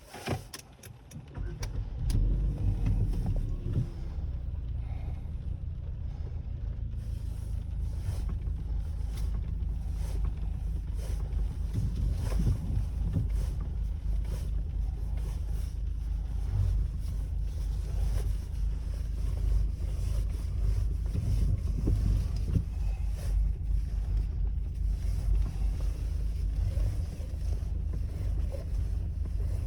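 Electric power steering unit of a LADA Vesta NG knocking repeatedly and irregularly as the steering is worked with the car at a standstill, over a steady low rumble that sets in about two seconds in. The knock is the sign of a faulty power steering unit.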